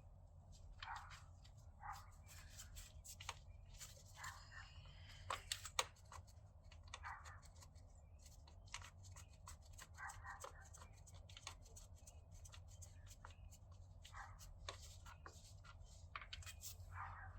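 Faint, irregular clicks and taps of hand tools working on the intercooler hold-down bolts, over a low steady hum.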